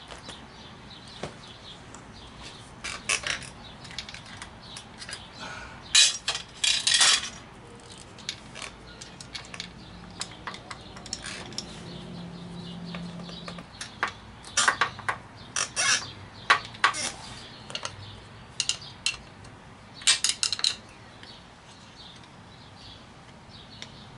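Intermittent metallic clinks, clicks and rattles of hand tools and parts being handled on a motorcycle engine, in scattered clusters, the loudest about six to seven seconds in and again around fifteen to seventeen seconds in.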